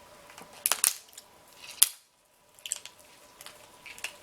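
King crab leg shell being cracked and broken open: a few sharp cracks and clicks, the loudest just before two seconds in, followed by softer shell clicks.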